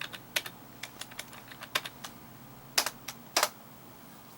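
Scattered, irregular clicks of a computer keyboard, with a few keys struck in quick pairs.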